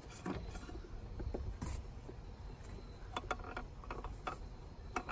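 Rag rustling and a series of short sharp clicks, most of them between about three and four and a half seconds in. This is the oil filter housing cap on a 3.6 L V6 being unscrewed by hand with gloved fingers and a rag.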